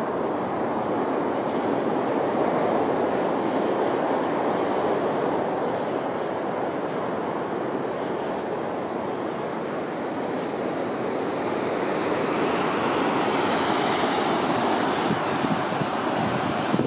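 Heavy ocean surf breaking against coastal rocks: a steady rushing noise that grows louder and brighter in the second half as the sea comes into view.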